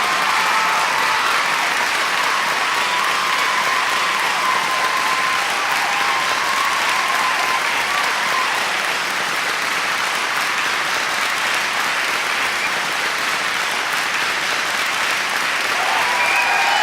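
Large crowd applauding steadily, with voices cheering over the clapping in the first few seconds and again near the end.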